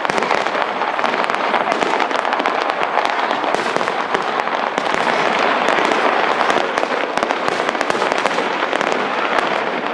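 Fireworks going off in a dense, continuous crackle of rapid pops, steady in loudness throughout.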